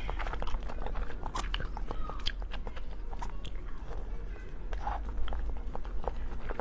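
Close-up chewing and biting of food, a stream of irregular small clicks and crunches, over a steady low hum.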